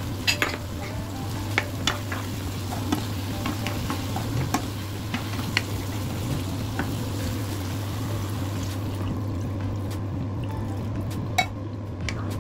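A ladle stirring chunks of vegetable and fish through a sizzling tomato base in a pot, with scattered knocks of the ladle against the pot. The hiss thins out about nine seconds in.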